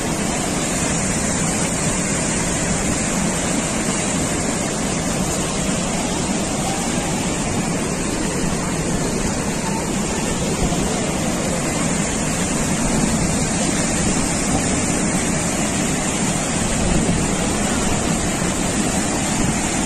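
Muddy floodwater pouring and churning over the surplus weir of an overflowing village tank, a steady loud rush of turbulent water: the tank is full to the brim after heavy rain.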